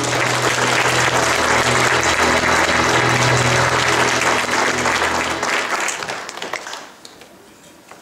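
Congregation applauding over the last held low chord of the accompaniment; the chord stops about five and a half seconds in and the applause dies away a second or so later.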